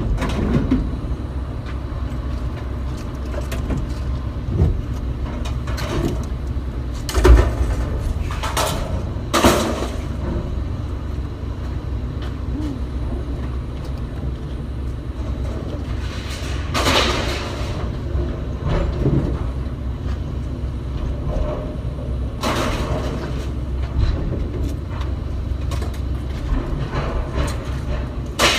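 Scrap metal being unloaded from a trailer: irregular bangs and clanks every few seconds, one longer scrape, over a steady low rumble.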